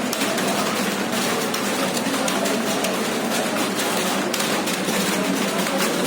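Many computer keyboards typed on at once: a dense, steady clatter of overlapping keystrokes.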